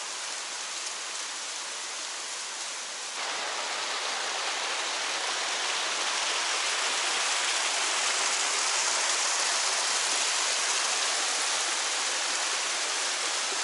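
A small waterfall: water rushing and splashing steadily down a steep rock chute. It gets suddenly louder about three seconds in.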